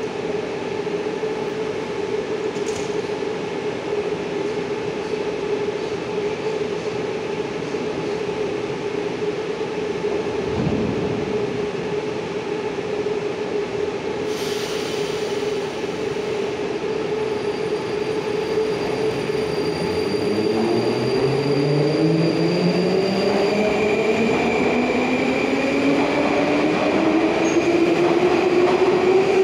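81-725.1 'Baltiets' metro train standing at the platform with a steady electrical hum, then pulling away about two-thirds of the way in: its traction drive whine rises in pitch in several tones at once as it gathers speed.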